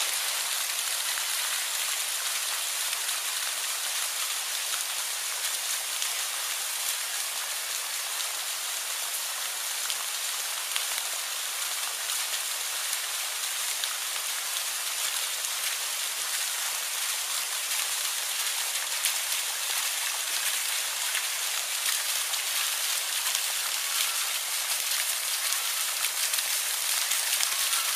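Steady rain: an even hiss with many fine drop ticks.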